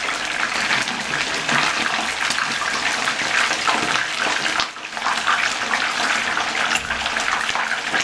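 Whole fish shallow-frying in hot oil in a non-stick pan: steady sizzling with a dense crackle of bursting bubbles, dipping briefly about five seconds in.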